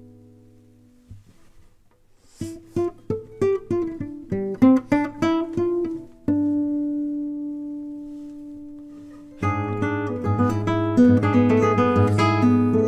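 Nylon-string classical guitar played solo: a chord fades out, then a quick run of plucked notes starts about two and a half seconds in, followed by a long held chord and, from about nine and a half seconds, a louder, dense passage of chords.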